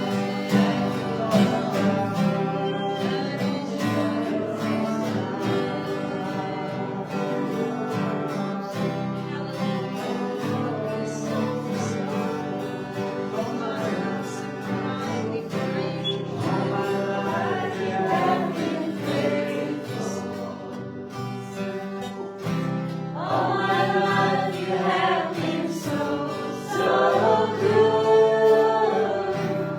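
Worship music: acoustic guitar with a group of voices singing together, the singing growing fuller about two-thirds of the way through.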